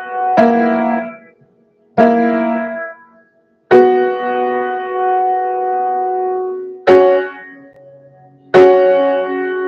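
Piano chords played slowly: five chords struck one at a time, each ringing out. The one about three and a half seconds in is held for about three seconds, while others are cut short into silence.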